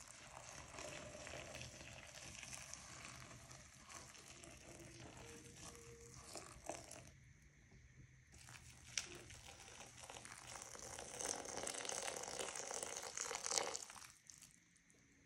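Hot water poured from a kettle into glass bowls of plant material (dandelions, leaves, petals) to steep them for dye: a steady rush of pouring water in two long pours with a short break between them, the second ending about a second before the end.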